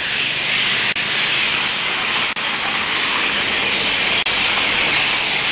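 Steady rushing hiss of water in a rain-flooded street, cut by three brief dropouts.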